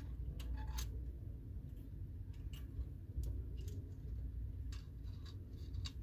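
Thin wire hook scraping and clicking against a coiled spring inside the water heater's metal check-valve fitting: a scattering of small sharp clicks at irregular moments over a low steady rumble, as the old check-valve spring is fished out.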